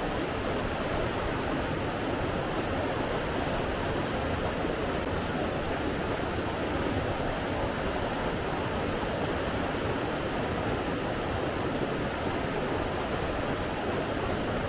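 Steady, even rushing of running water, with no breaks or changes in level.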